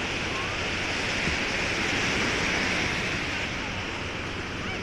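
Small Lake Michigan waves breaking and washing up on a sandy shore in a steady wash, with wind on the microphone.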